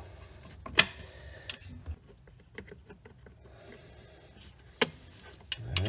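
Metal tool clicks as long screwdrivers pry against an 8th-generation Honda Civic starter motor to free its retaining tab: two sharp loud clicks, one about a second in and one near the end, with a few faint ticks between.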